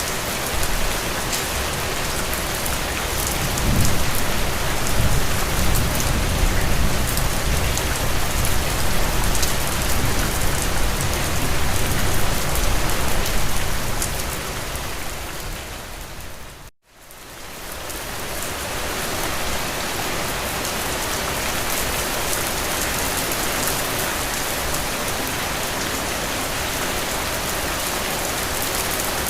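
Steady rain falling and pattering on surfaces. A low rumble swells underneath for several seconds in the first half, and the sound drops out for a moment a little past halfway before the rain returns.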